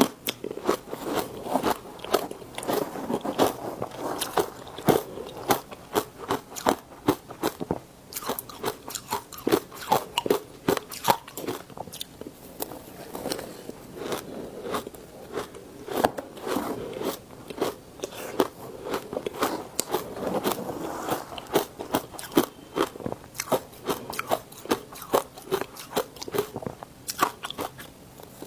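Ice being bitten and chewed close to the microphone: a dense, irregular run of sharp crunches and crackles, several a second, over softer chewing.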